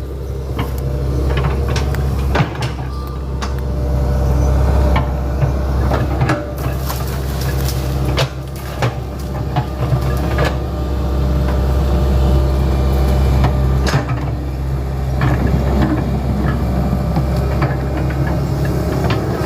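Hitachi Zaxis 110 excavator's diesel engine running steadily under working load, its note dipping and swelling several times as the machine works. Scattered knocks and clatters from the working machine sound over it.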